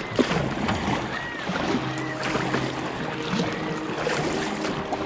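Sea water lapping and splashing around a fishing kayak, a continuous wash with short splashes.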